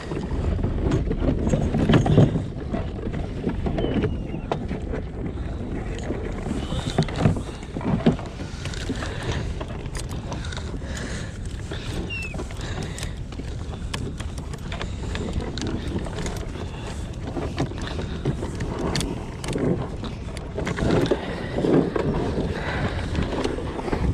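Wind rumbling on the microphone aboard a kayak, swelling in gusts near the start and again near the end, with scattered small clicks and knocks.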